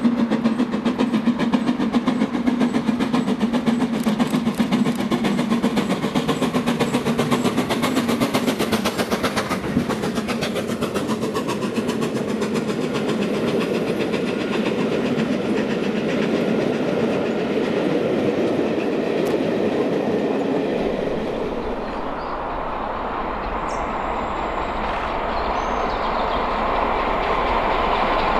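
Steam locomotive working past with rapid exhaust beats, then its coaches clattering over the points. Near the end the sound changes to the lower rumble of another steam train approaching.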